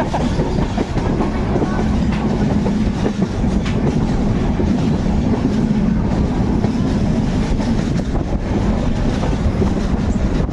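Moving train running along the track: a steady, loud rumble with a few faint clicks.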